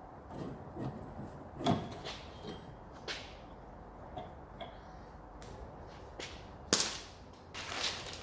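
Scattered clicks, knocks and rattles of a car handbrake cable and its end fittings being worked free and handled. There is a sharper knock about two seconds in and a louder one near the end.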